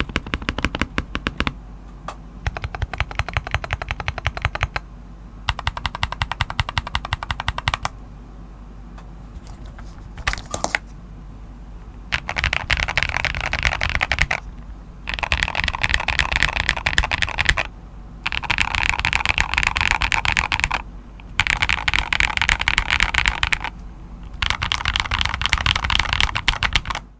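Fast typing on an NK87 Entry Edition mechanical keyboard, keystrokes coming in bursts of a second or two with short pauses between. About halfway through the bursts become louder and brighter.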